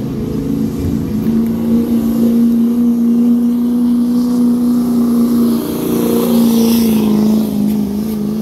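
Pickup truck engine held at high revs under full load while pulling a weight-transfer sled: a loud, steady drone that sags slightly in pitch a little past halfway.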